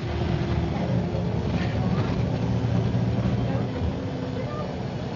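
MCW Metrobus double-decker's diesel engine running under way, a steady low hum. About four seconds in, the engine note drops and the sound becomes quieter.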